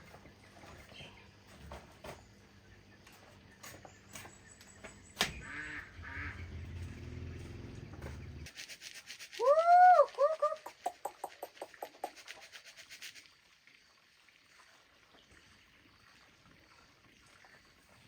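An animal, plausibly a bird, calls about halfway through: two or three loud arching cries followed by a quick run of fading notes. Before it there is a faint low rumble of background noise with a few clicks.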